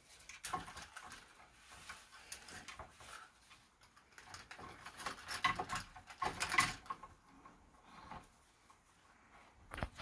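A blue-and-gold macaw on a wooden perch working at a hanging beaded toy: irregular scratchy rustling and clicking, busiest a few seconds in, with a sharp knock near the end.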